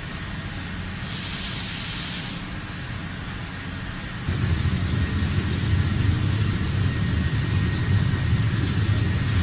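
Industrial machinery running with a steady low rumble; about a second in a short hiss of air or spray sounds for just over a second, and a little after four seconds in the noise jumps to a louder, rougher rumble and hiss.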